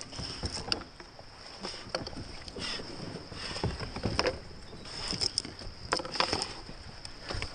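Footsteps scrambling over rock and dry brush: irregular crunches and scrapes of boots on stones and twigs, several to a second at times.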